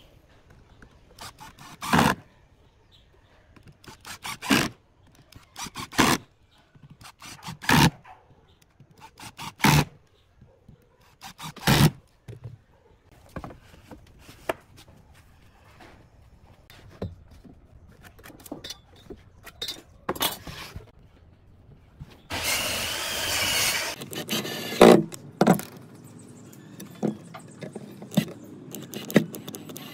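Woodworking at the bench: boards knocked and set down, sharp wooden knocks about every two seconds, then lighter clatter of wood pieces. About 22 seconds in a cordless power driver runs for about two seconds, followed by more knocks.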